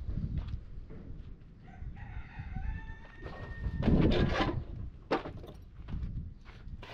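A rooster crowing once, its call ending on a long held note, about two seconds in, over a steady low rumble; a louder burst of noise follows around four seconds in.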